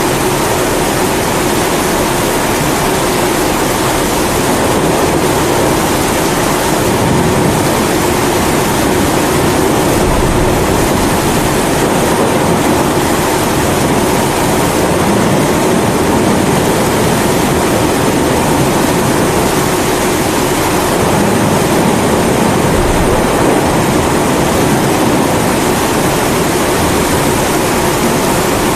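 Pressurised kerosene primus stove burner running with a steady roar, layered with steady rainfall.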